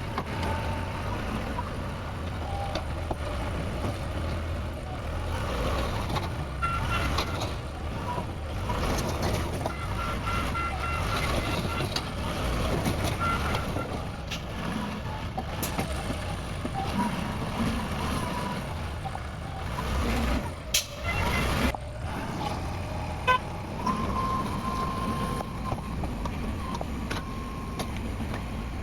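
Cat 420F backhoe loader's diesel engine running steadily, with runs of short high electronic beeps around the middle, like a reversing alarm.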